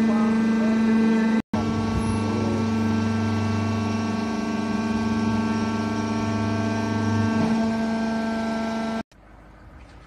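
Hydraulic power unit of a cardboard baling press running with a steady hum and whine. A deeper hum joins for about five seconds while the bale is pushed out. The sound drops to a faint background near the end.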